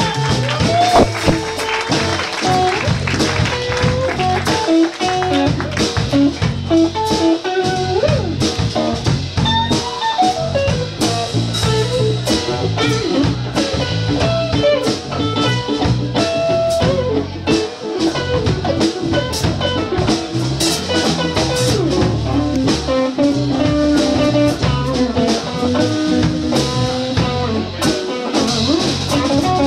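Live blues band playing an instrumental passage: a lead electric guitar with bent, gliding notes over a drum kit and rhythm guitar.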